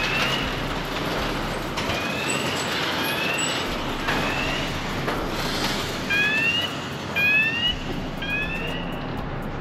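Electric dirt bike's motor whine rising in short, repeated sweeps, strongest near the end, over steady rolling and wind noise.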